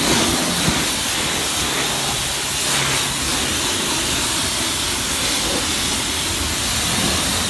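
Car-wash pressure-washer wand spraying water onto the tyres: a steady, loud hiss.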